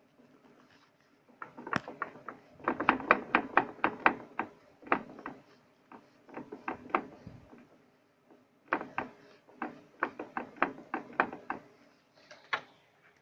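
Metal clunks and clicks from a car's drivetrain with excess free play, knocking in quick runs as it is worked back and forth. The owner suspects a differential that has come loose or is failing.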